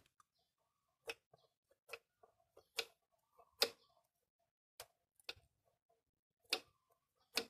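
Faint, irregular clicks and light knocks, about a dozen, from hand work on a motorcycle carburetor's throttle cable and linkage during adjustment.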